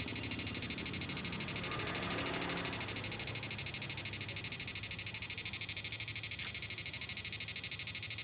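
The repaired TF41 power unit running continuously under load, giving a steady high-pitched electronic whine that pulses fast and evenly.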